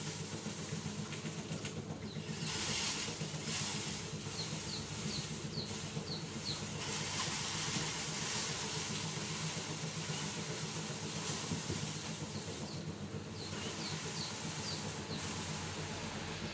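A steady mechanical drone with a hiss over it. Two short runs of high chirps, about two a second, come about four seconds in and again near the end.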